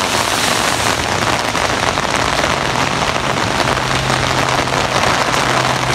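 Heavy rain pouring down, a dense steady patter of drops hitting the ground and surfaces, with a faint steady low hum underneath.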